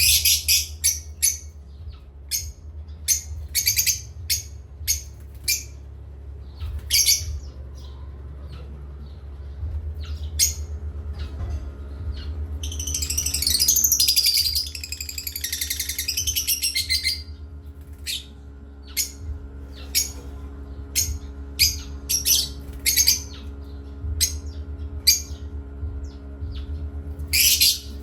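Parrots chirping in many short, sharp high calls and squawks, with a few seconds of dense chattering about halfway through. A steady low hum lies underneath.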